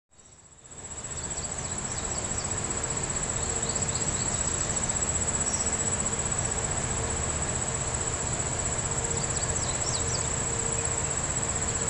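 Insects trilling outdoors: a steady, high-pitched, finely pulsed trill over a continuous background hiss, fading in over the first second.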